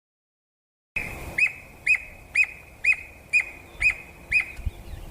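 Squirrel cuckoo calling: a series of seven sharp, whistled notes, evenly spaced about two a second, starting about a second in.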